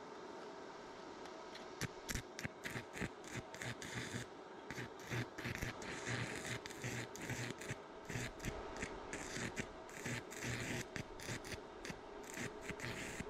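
Electric stick (arc) welding on the cart's steel wheel mount: the arc crackles and sputters in irregular bursts starting about two seconds in, over a steady hum.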